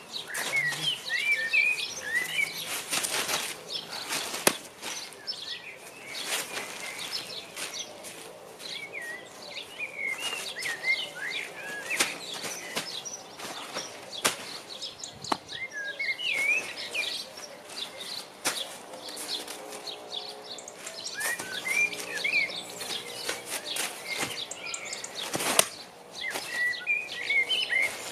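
Small birds chirping and singing in short repeated phrases, over the crackle and thump of a plastic tarpaulin as people step, are thrown and fall on it. The loudest thumps come about four seconds in and near the end.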